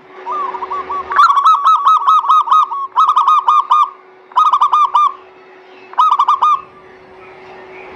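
Zebra dove (perkutut) cooing in four bursts of rapid, repeated hooked notes. The first burst is the longest, and the bursts grow shorter with short gaps between them.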